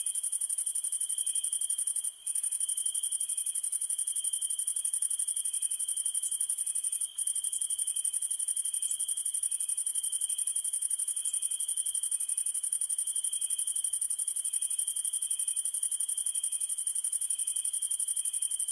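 Night insects, crickets, chirping in a continuous high-pitched trill with a steady lower-pitched chirring beneath. The sound breaks off for an instant twice.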